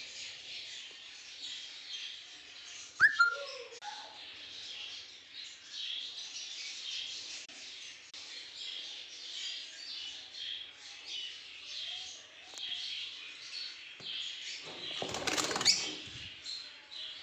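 A flock of African lovebirds chirping and chattering continuously. A sharp knock comes about three seconds in, and a louder rustling flurry lasting about a second and a half comes near the end.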